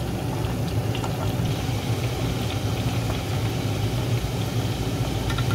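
French fries frying in a deep pot of hot cooking oil, a light sizzle with scattered small crackles, over a steady low hum that is the loudest sound.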